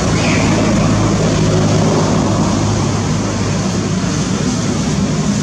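A motor engine running steadily, its low hum under a loud, even rushing noise.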